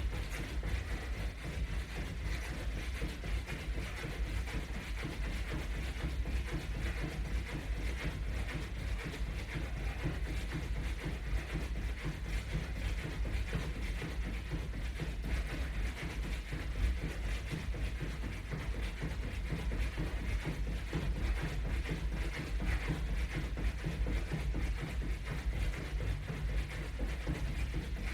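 Quick, steady footfalls of a person jogging in place while strapped to resistance bands, keeping an even pace throughout.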